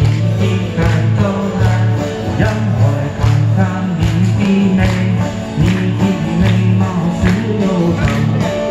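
Live busking music from a Chinese folk-song medley: electric guitar over a bass line, with a steady beat about every 0.8 seconds.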